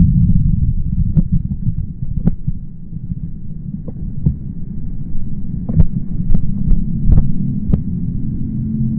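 Loud low rumbling buffeting on a phone microphone, with scattered sharp taps at irregular intervals.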